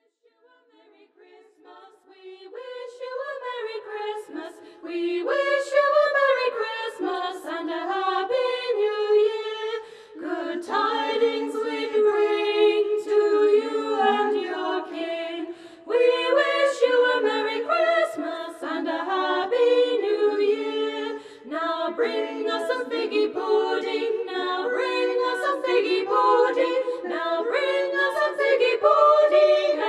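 A cappella choir singing in several-part harmony, fading in over the first few seconds, with short breaths between phrases.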